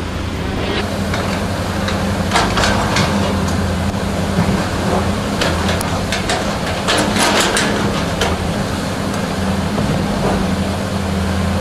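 Heavy diesel engines of a Cat excavator and dump trucks running steadily, with a series of sharp clanks and rattles between about two and eight seconds in.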